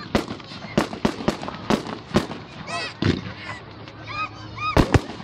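Fireworks going off in a rapid, irregular series of sharp bangs and cracks, loudest just before the end. In the middle come a few short high-pitched squeals.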